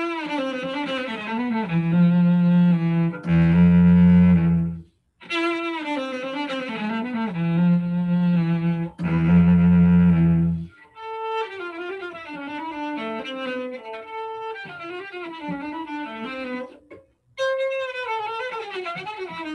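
Solo cello bowed, playing phrases of held notes separated by short breaks. The loudest moments are heavy, sustained low notes a couple of seconds in and again about eight to ten seconds in.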